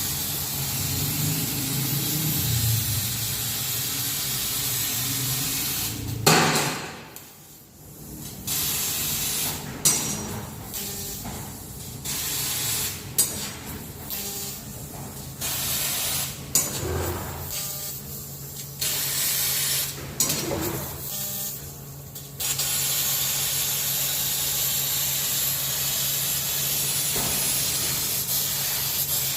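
Laser cutting machine cutting metal plate: a steady hiss of gas blowing at the cutting head. It stops about six seconds in, then switches on and off in short spells of a second or two, and runs steadily again for the last seven seconds, over a low steady hum.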